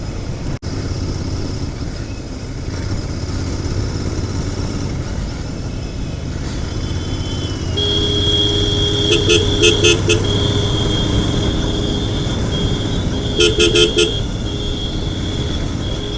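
Royal Enfield Continental GT 650's parallel-twin engine running steadily on the move, with road and wind noise. About halfway through, a high steady tone joins in, and a vehicle horn honks in two bursts of quick repeated taps.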